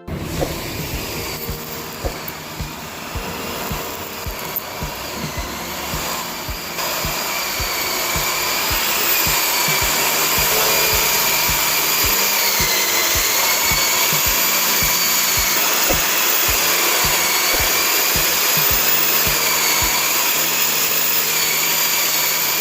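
An electric power tool's motor running steadily, a hiss with a wavering high whine, growing louder over the first eight seconds or so and then holding. Background music with a steady beat plays under it.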